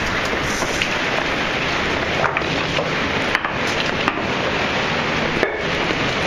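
Steady rush of the cave stream's falling water, with scattered knocks and scrapes of boots on wet rock during a climb down boulders.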